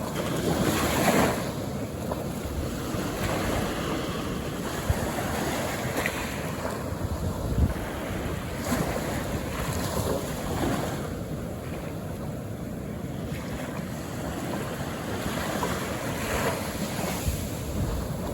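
Calm ocean surf: small waves breaking and washing up the shore, swelling every several seconds over a steady wash, with wind rumbling on the microphone.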